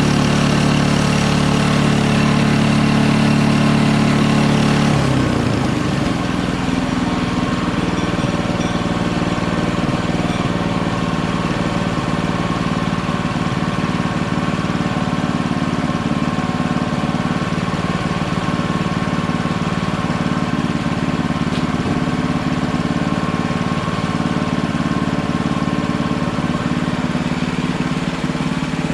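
Engine of a Hudson Hunter portable bandsaw mill running steadily as it drives the band blade. Its note changes about five seconds in, then holds steady.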